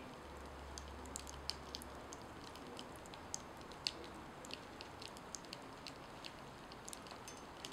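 Charred corn-masa tortilla smouldering on a metal pan, crackling faintly with small irregular pops, a few a second.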